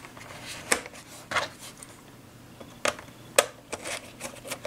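Plastic access cover being fitted back onto the underside of a Dell Inspiron 9100 laptop: a few short, sharp plastic clicks and taps, irregularly spaced, as it is handled and pressed into place.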